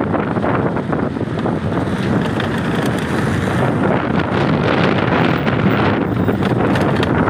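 Loud, steady wind buffeting the phone's microphone while riding along a road, with no clear engine note above it.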